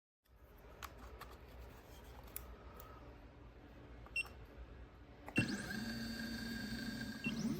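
Genmitsu 3018-PROVer desktop CNC mill's stepper motors: a few light clicks, then a little past five seconds a steady whine starts up as an axis moves.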